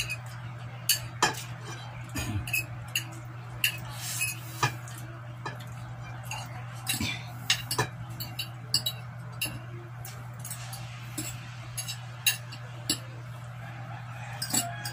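Forks and spoons clicking and scraping against ceramic plates in irregular, scattered clinks, over a steady low hum.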